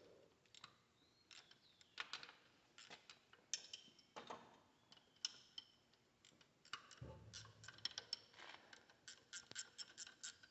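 Faint, irregular metallic clicks and scrapes of a hand wrench working bolts on a tractor engine's cylinder head, coming quicker near the end.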